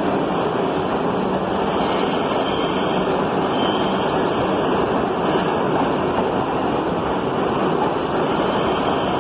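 R62 subway train running past along the station platform: a loud, steady rush of steel wheels on the rails and car bodies moving by.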